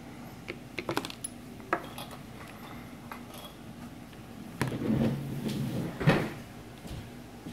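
Small clicks and taps of a precision screwdriver and an iPhone 6 Plus being handled on a tabletop. Near the end comes a louder stretch of rustling, then a sharp knock as the phone is laid down.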